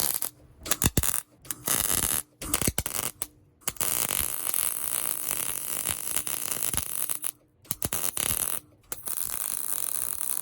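Welder laying welds on a fabricated skid plate: a crackling hiss in bursts, a few short tacks at first, then longer runs of one to three seconds with brief pauses between them.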